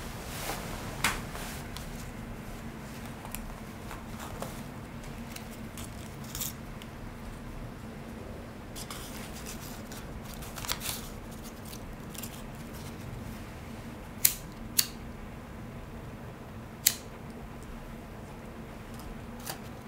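Scattered sharp clicks and snips from small objects being handled, over a steady low hum. The two loudest come close together about two-thirds of the way in, and another follows a couple of seconds later.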